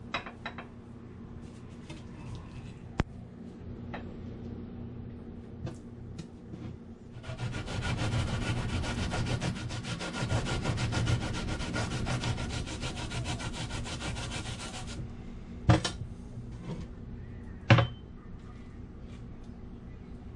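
Daikon radish grated on a stainless steel box grater: a run of rapid rasping strokes lasting about eight seconds, followed by two sharp knocks.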